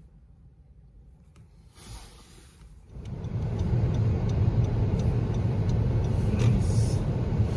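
Quiet for about three seconds, then a car's engine and road noise heard from inside the cabin while driving: a steady low rumble.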